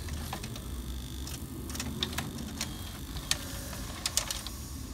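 VCR tape transport running its unload sequence: a steady low motor hum with a scattered series of mechanical clicks from its gears and levers as it unthreads the tape to eject it. The sequence is set off by the uncovered end-of-tape optical sensor seeing light.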